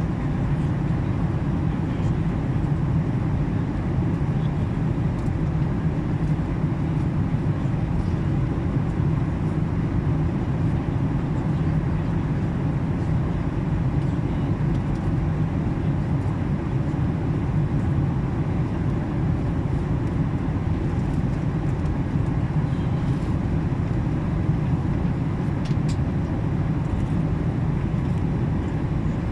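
Steady low rumble of an airliner's engines and airflow, heard inside the passenger cabin during the descent toward landing.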